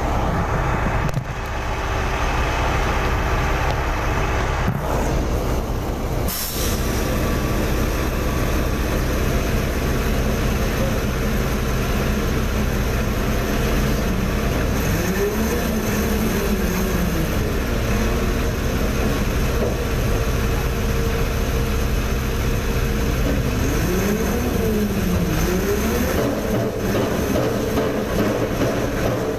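Heavy diesel engine of a mobile truck crane running steadily under load. Twice in the second half it revs up and settles back down.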